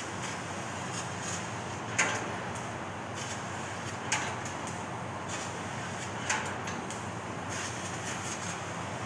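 Laser cutting machine cutting a steel sheet: a steady hiss and machine hum, broken by three short, sharp bursts about two seconds apart.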